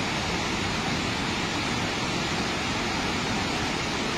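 Water released through a dam's spillway shutters, each raised about two inches, rushing down the concrete spillway in a steady, unbroken rush.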